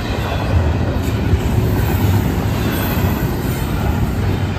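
Florida East Coast freight train's autorack and double-stack cars rolling past at speed, close by: a loud, steady rumble of steel wheels on rail.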